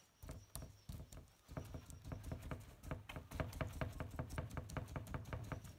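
Paint brush stippling resin into a fibreglass mat patch: quick wet dabs, a few at first and then several a second from about a second and a half in, working the air out of the laminate.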